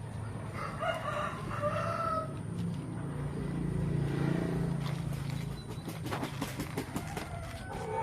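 A rooster crowing once, starting about a second in, followed by a low steady hum and a few clicks.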